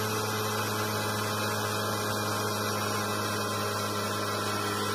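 Small electric air compressor running with a steady, even hum, its motor under load and drawing about 1,000 watts.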